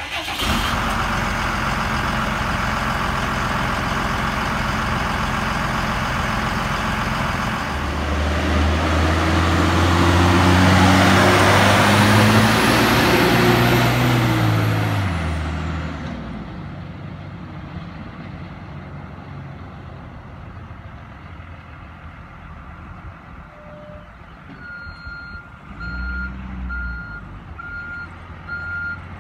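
1999 Ford F800 bucket truck's Cummins 5.9-litre diesel idling steadily, then revving as the truck pulls away, its pitch climbing in steps through the gears before fading into the distance. Near the end a reversing alarm beeps repeatedly.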